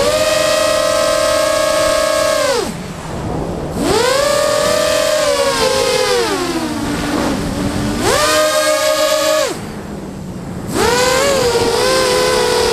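FPV quadcopter's motors and propellers whining, heard from its onboard camera, the pitch rising and falling with the throttle. Twice the whine drops away for about a second as the throttle is cut, then spools back up. In between it slides slowly down in pitch.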